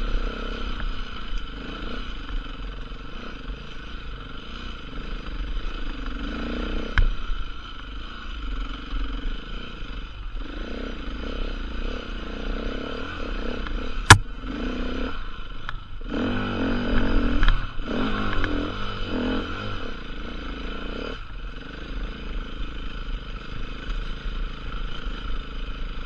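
KTM 450 EXC's single-cylinder four-stroke engine running as the bike is ridden, its revs rising and falling, louder on the throttle about two-thirds of the way through. A single sharp knock comes about halfway through.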